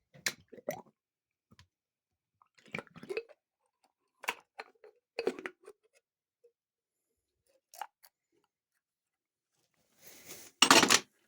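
Metal parts and hand tools clinking and knocking on a TH400 automatic transmission being taken apart, in scattered light taps. Near the end comes a short scrape, then the loudest clank.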